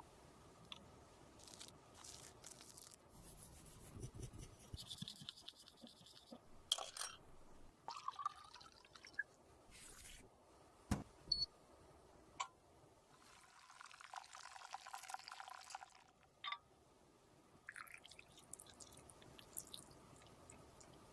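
Close-up handling of cosmetics and makeup tools during lipstick and makeup-paste repair: scattered small clicks and taps, with a couple of stretches of soft scraping.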